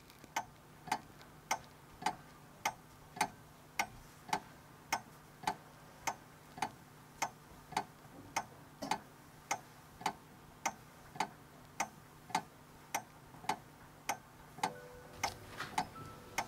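Clock ticking steadily, a little under two sharp ticks a second, with faint held tones coming in near the end.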